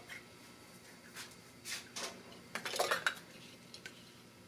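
Tire tube patch kits being handled: a few light clicks and knocks, with a short rattling clatter about two and a half to three seconds in.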